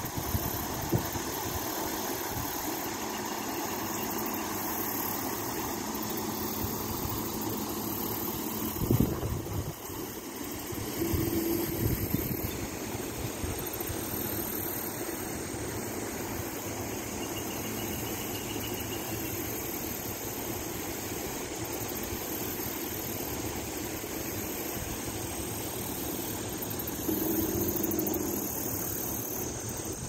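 Steady rushing of a small creek waterfall spilling over a rock ledge, with a few dull thumps.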